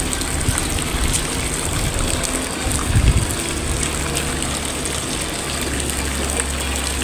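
Steady rush of flowing water, with a brief low rumble about three seconds in.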